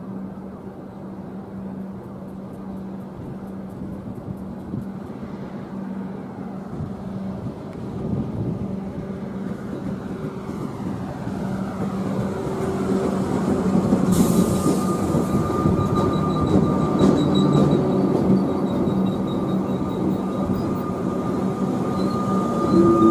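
Alstom Comeng electric suburban train approaching and pulling into the platform, growing steadily louder over a low steady hum. About fourteen seconds in there is a brief high hiss, then a steady high squeal as the train slows to stop at the end of the line.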